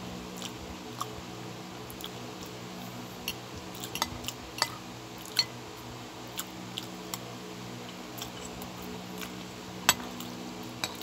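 Metal spoon and fork clinking and scraping against a ceramic bowl while eating, in scattered irregular clicks, with one louder clink near the end. A steady low hum runs underneath.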